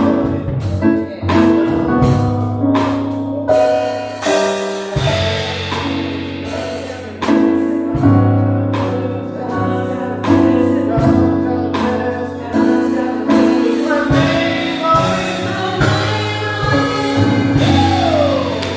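Gospel praise team of women singing together into microphones over instrumental accompaniment, with sharp percussive hits in the opening seconds and a falling vocal run near the end.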